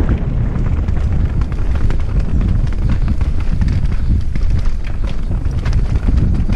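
Downhill mountain bike running fast over a rough dirt trail: a steady wind rumble on the helmet-camera microphone, broken by many quick clicks and rattles from the bike and tyres over roots and stones.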